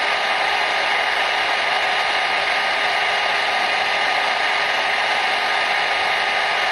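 Hair dryer running steadily: an even rush of blown air with a few faint steady tones under it.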